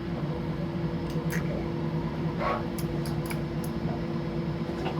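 A few light clicks and taps of small 3D-printed plastic parts being handled and fitted together, with a short scrape about halfway through, over a steady low hum.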